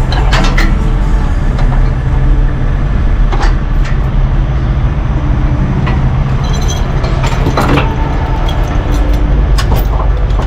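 Heavy diesel truck engine idling steadily, with a few sharp metallic clicks and knocks over it.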